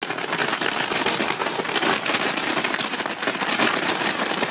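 Dense, steady crackling of a rope ladder of fireworks burning upward, many small pops merging into a continuous rain-like hiss.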